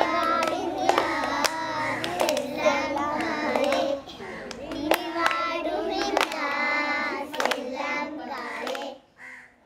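A group of young girls singing a song together in unison, with scattered hand claps; the singing stops just before the end.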